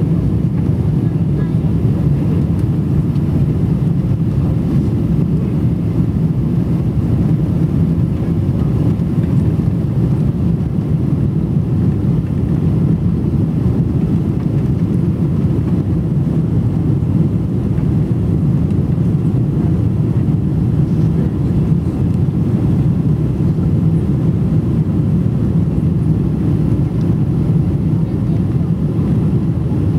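Steady low rumble inside the cabin of a Boeing 777: engine and airflow noise heard from a window seat over the wing, with the flaps extended on approach to landing.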